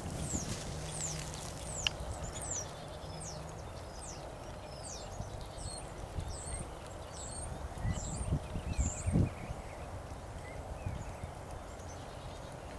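A horse's hooves thudding dully on grass turf at a trot, louder about two-thirds of the way through, with many short high bird chirps above.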